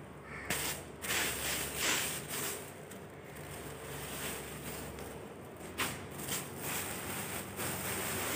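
Thin plastic carrier bag rustling and crinkling on and off as a hand rummages in it and pulls out a bunch of red amaranth leaves.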